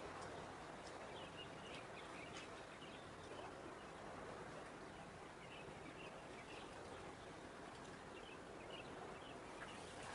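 Faint outdoor ambience: a steady low background hiss with small birds chirping briefly every second or two.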